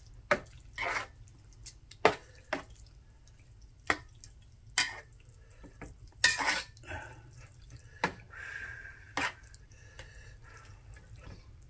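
A utensil clinking and scraping in a pot of jjajangmyeon noodles as they are mixed: scattered sharp clicks a second or two apart, with a few longer scraping or stirring sounds in between.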